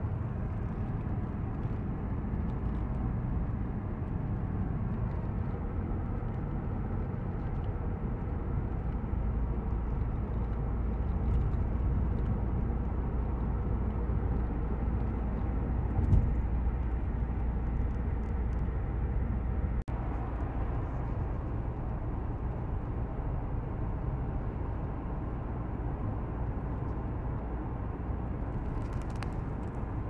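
Steady road and driving noise of a car at motorway speed, heard from inside the cabin as a low, even rumble. A brief knock comes about halfway through, and the sound drops out for a moment about two-thirds through.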